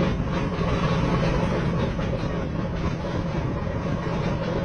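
Ship's engines and deck machinery running with a steady low hum and rushing noise, heard from on deck.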